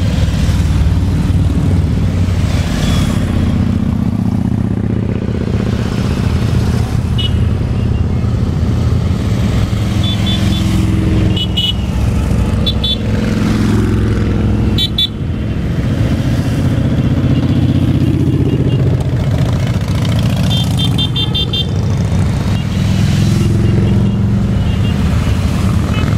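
A group of motorcycles running past, the engines rumbling and their pitch rising and falling. Short horn toots sound a few times around the middle and again later.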